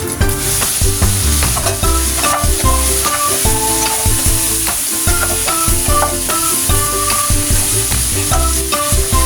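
Chicken wings frying in a pan, a steady sizzle.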